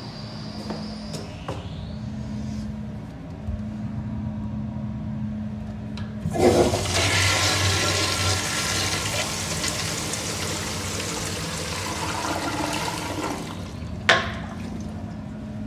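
Toilet flushing: a sudden loud rush of water starts about six seconds in and runs for about seven seconds before dying away. Near the end comes a single sharp clack as the toilet lid is lowered.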